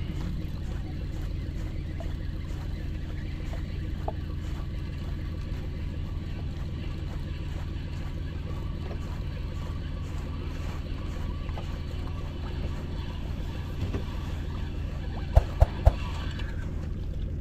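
A boat engine running steadily, with three sharp knocks in quick succession near the end.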